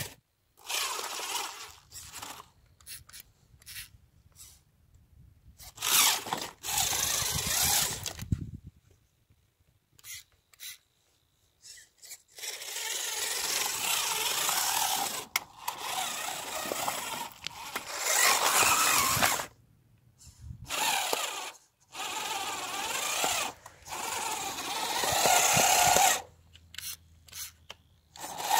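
Homemade RC car's electric motor and open gear drive whining in repeated throttle bursts of varying length, starting and cutting off again and again as the car crawls over loose dirt and stones.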